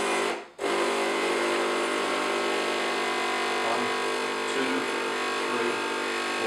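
Home espresso machine's pump buzzing steadily as it pushes hot water through the coffee grounds to extract a shot. There is a short break about half a second in, then the pump runs on evenly.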